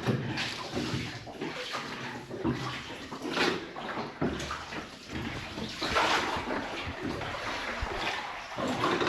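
Water splashing and sloshing around a small rowed boat as oars dip and pull through the river, with several louder splashes.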